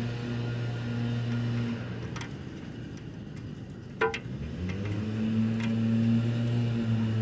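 A steady motor hum that dies away about two seconds in, then after a sharp click about four seconds in spins up with a rising pitch and runs steadily again, with a few light metallic ticks.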